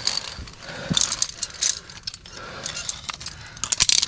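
Via ferrata carabiners clinking and jingling against each other and the steel safety cable in several short bursts.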